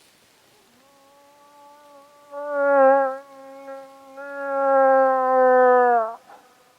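Cow moose call: one long nasal moan, steady in pitch, swelling louder twice, then dropping in pitch and cutting off near the end, the kind of call used to bring in a rutting bull.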